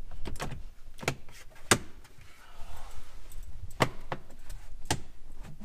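Lower dash trim panel under the steering column of a 2018 Jeep Wrangler JL being pushed back into place, its clips snapping in with a series of sharp clicks and knocks, with a brief rustle of the panel being handled between them.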